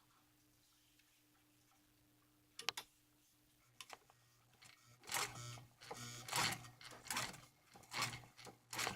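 Heavy-duty sewing machine and folded vinyl being handled: two faint clicks, then from about halfway a run of short, irregular clattering and rustling sounds, roughly one a second.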